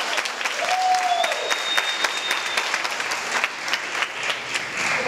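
Banquet audience applauding steadily, with a short rising-and-falling whoop about half a second in and a high, steady whistle for about a second and a half just after.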